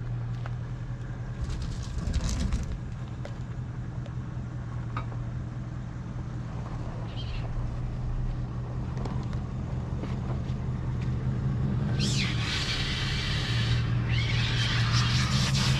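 Supercharged Range Rover P38 engine running as the vehicle drives back over rough ground, a steady low hum that grows louder as it approaches. A loud hissing noise joins it from about twelve seconds in.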